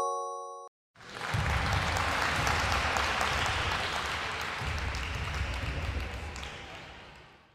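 A chime's last ringing notes stop, then about a second in, applause from a crowd starts at full level with many quick claps and fades out near the end: a sound effect marking the answer reveal.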